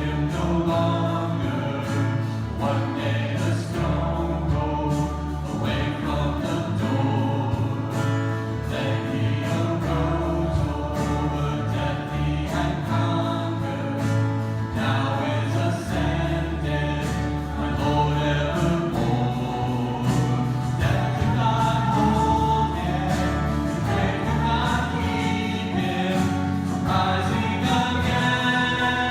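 Worship music: a group of voices singing a worship song together over instrumental accompaniment, with sustained bass notes underneath.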